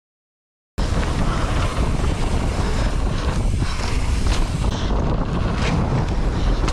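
Wind buffeting the microphone of a handlebar-mounted action camera as a mountain bike rides fast down a dirt trail, mixed with the rumble of the bike over the ground. The sound cuts out completely for about a second at the start, then comes back at the same steady level.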